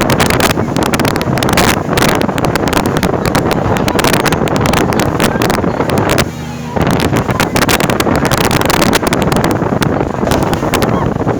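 Motorboat ride: steady engine and water noise under loud wind buffeting the microphone, with many crackling gusts. The wind lets up briefly about six seconds in, and a steady hum comes through.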